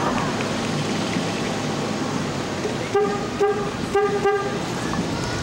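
Vehicle horn honking four short times, starting about three seconds in, over a steady rushing background noise.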